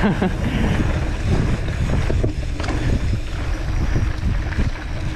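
Wind buffeting the camera's microphone as a mountain bike rolls fast down a dirt trail. Steady low rumble of the tyres and bike on the ground, with a few light knocks.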